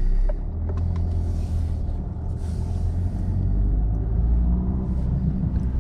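Car driving along, heard from inside the cabin: a steady low rumble of engine and road noise, with faint tyre hiss from the wet road surface.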